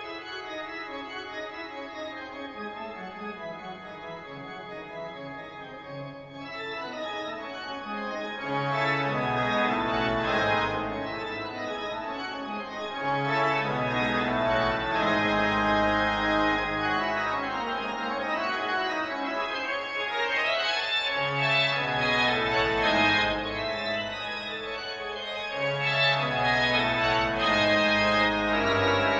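Organ music, chords and a melody played over a moving bass line. It starts softly with a slowly descending low line, then grows fuller and louder about eight seconds in.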